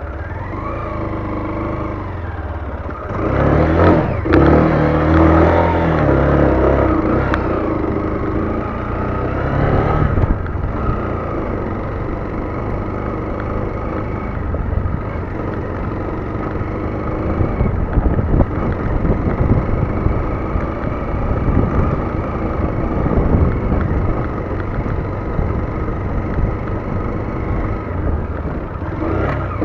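Lifan KPT motorcycle engine running under riding load, revving up hard about three seconds in, then carrying on with its pitch rising and falling as the throttle changes.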